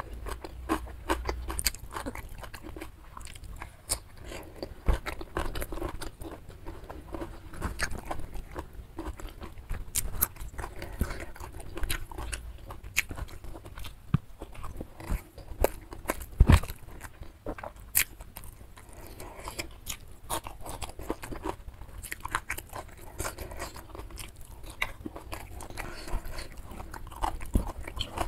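Close-miked eating sounds of a person chewing a rice meal eaten by hand, with many irregular sharp, wet mouth clicks.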